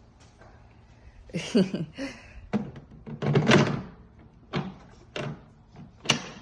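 EGO lawnmower battery pack being pushed into its plastic battery compartment: a series of hollow plastic knocks and thunks, then a sharp click near the end as it latches in place.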